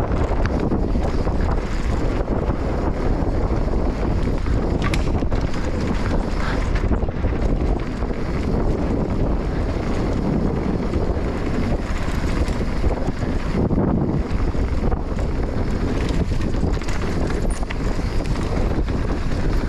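Enduro dirt bike's engine running on a trail ride, buried in heavy wind buffeting on the microphone.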